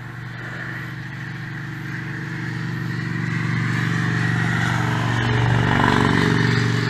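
A motor vehicle's engine running steadily, growing louder over several seconds and easing off near the end, like a vehicle passing by.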